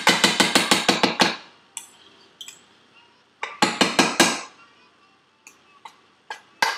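A kitchen utensil knocking and clinking against baking dishware in quick runs of sharp taps. There are about ten rapid taps at the start, another burst of about five near the middle, and then a few scattered clicks.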